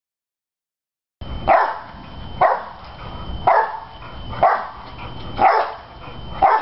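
Silent for about the first second, then a boxer dog bouncing on a trampoline barks about once a second, one short bark with each bounce.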